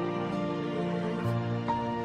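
Soft, slow background music with sustained melody notes.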